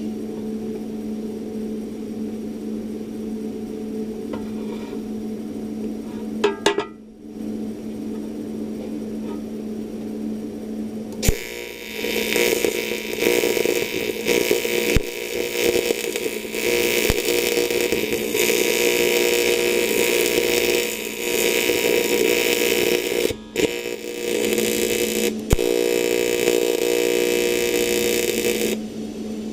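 TIG welder humming steadily; about eleven seconds in, the arc strikes on cast aluminium and buzzes and crackles for roughly seventeen seconds, breaking off twice for a moment near the end, as an AC TIG arc does on aluminium.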